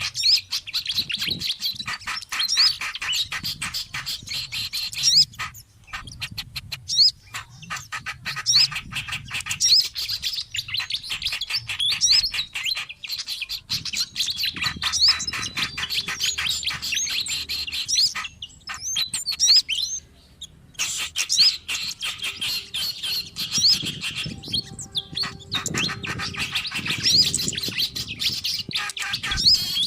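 Bird-lure recording of small songbirds calling noisily: rapid dry chattering notes mixed with short rising whistles, with brief pauses about five and twenty seconds in.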